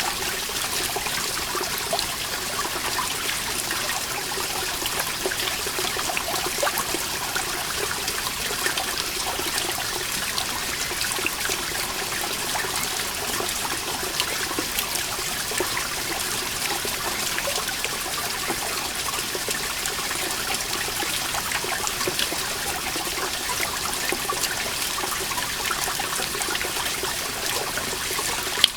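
Water dripping and trickling off a moss-covered rock wall: a dense, steady patter of many small drops. One sharper drop lands near the end.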